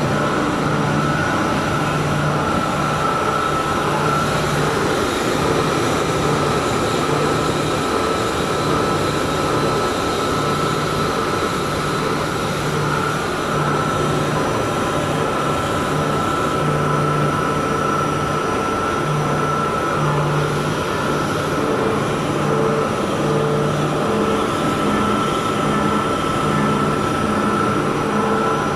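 75 HP chilled-water pump and its electric motor running steadily, with a constant high whine over a low hum that swells and fades every second or two. It is being checked for an abnormal noise; bearings, balance and alignment are the suspected causes.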